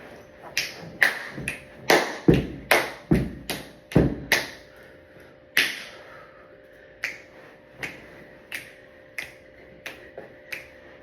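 A person making clicking sound effects: a run of sharp, separate clicks, about two a second for the first four seconds or so, then, after a short gap, slower single clicks spaced more widely.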